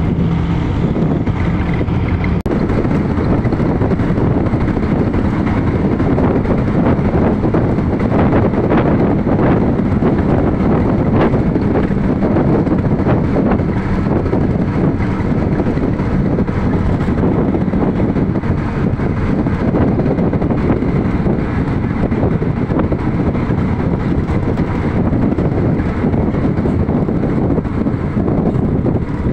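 Steady rush of wind buffeting the microphone over the road noise of a vehicle driving at speed.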